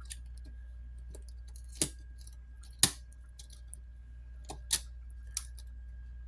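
A few sharp, separate clicks and lighter taps from small tools and smartphone parts being handled during a phone screen repair, the loudest about three seconds in, over a faint steady hum.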